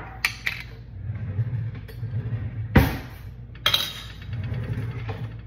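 Glass salsa jar clinking and knocking as it is handled on the counter: a few light clicks at first, one sharp knock near the middle, then a bright clink just after.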